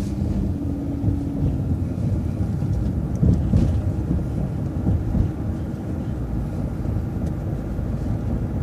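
Coach bus running, heard from inside: a steady low engine and road rumble as the bus drives off after a right turn, with a few knocks about three seconds in.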